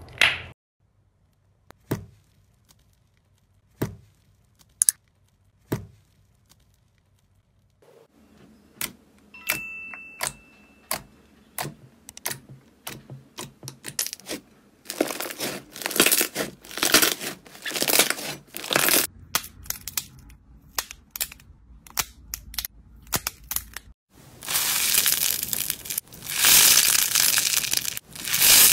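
Slime being handled: sharp sticky clicks and pops as it is squeezed, poked and stretched, sparse at first and growing dense. Near the end comes a long dense crackling as a red foam sponge is squeezed.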